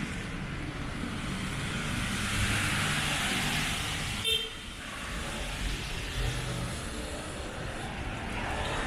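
Street traffic on a wet road: cars passing with steady tyre hiss. About four seconds in there is one brief, high toot, like a quick tap on a horn.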